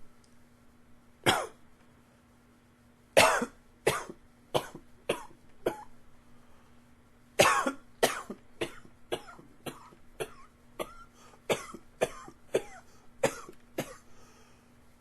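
A man coughing: one cough, then a run of five coughs, then a longer fit of over a dozen quick coughs in close succession.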